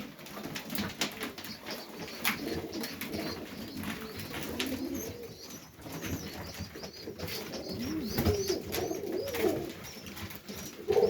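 Domestic highflyer pigeons cooing in a loft, with scattered short taps and clicks among them and some higher chirping in the later part.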